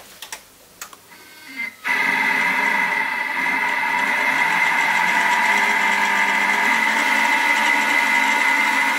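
Thermomix food processor's motor running steadily with a high whine, mixing water into a stiff cake dough. It starts abruptly about two seconds in, after a few light clicks.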